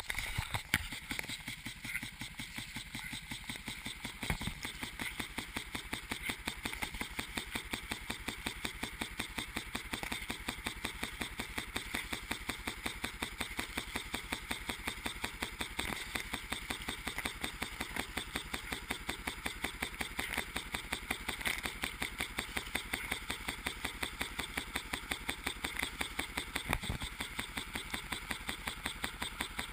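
Lawn sprinkler running, with a fast even ticking about three or four times a second over the hiss of spraying water. Two louder knocks stand out, one a few seconds in and one near the end.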